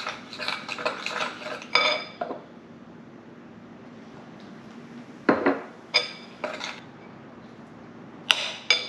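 Metal spoon stirring beer batter in a glass bowl, scraping and clinking against the glass for the first two seconds. After a short lull come a few separate ringing clinks of utensil on glass, about five and six seconds in and again near the end.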